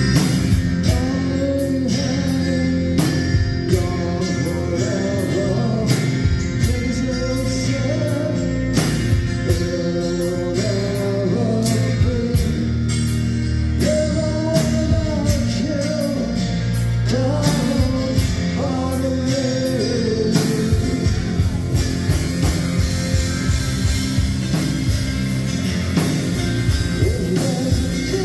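Live rock band playing through a club PA: drums keeping a steady beat under strummed acoustic guitar and keyboards, with singing over them. About twenty seconds in, the cymbals start ringing continuously.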